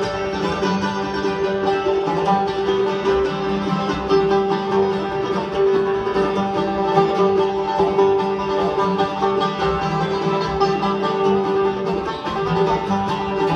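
Bluegrass band of banjo, mandolin, acoustic guitar and upright bass playing an instrumental break between sung verses, with a steady run of fast-picked notes over the bass.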